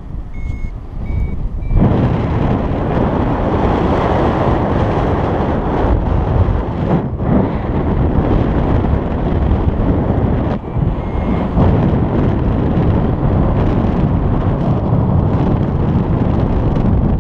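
Wind rushing over the microphone in paraglider flight, loud and gusting, with short high beeps from a flight variometer signalling lift: three near the start and two more about eleven seconds in.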